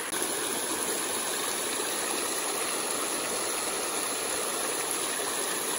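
Creek water rushing steadily over and through a hand-built rock dam, a constant splashing rush; the creek is running high and muddy after heavy rain.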